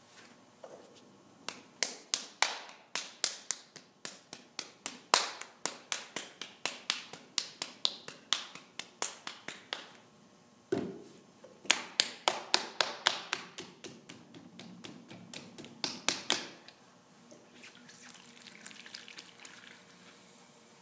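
Hands patting and slapping a lump of wet stoneware clay: a quick series of sharp slaps, two or three a second with some much louder than others, stopping about sixteen seconds in, followed by a soft steady hiss.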